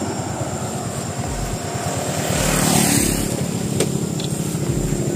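An engine running steadily with a fast, even low pulsing, swelling briefly louder about halfway through.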